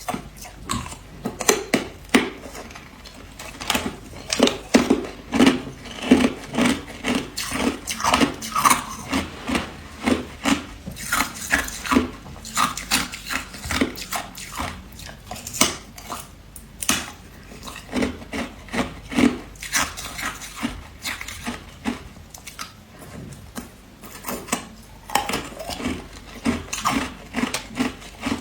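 Close-up crunching of a person biting and chewing ice: a rapid, irregular run of sharp cracks and crunches, several a second, with short lulls.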